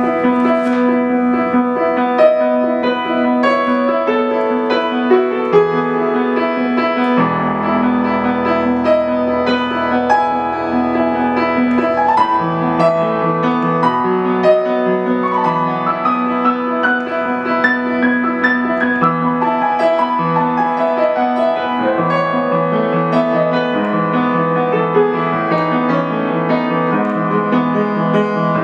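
Solo piano playing a new-age piece: a melody of many notes over held bass notes.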